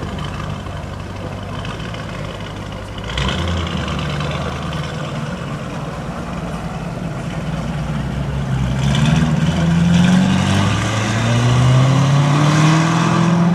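Lamborghini Urus twin-turbo V8 through a straight-piped Novitec Race exhaust, running at low revs with a sudden step up in loudness about three seconds in. From about eight seconds in the engine note rises steadily and grows louder as it accelerates.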